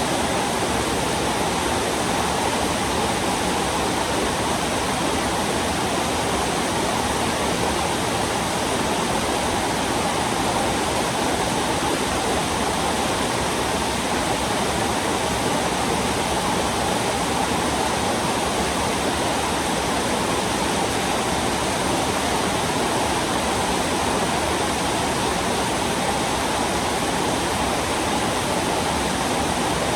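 Heavy rain falling, a steady, unbroken hiss of water.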